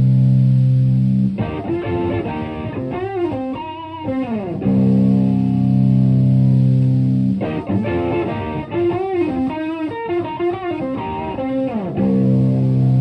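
Overdriven electric guitar: a Stratocaster through an Ibanez TS-808 Tube Screamer into a Marshall Plexi head and 4x12 cabinet. A held low chord alternates with a single-note lead lick with string bends and vibrato, and the phrase is played twice before the chord rings again near the end.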